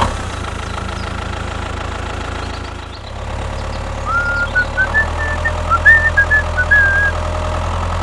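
Tractor engine running steadily with a low, even chug. From about four seconds in, short high chirps sound over it.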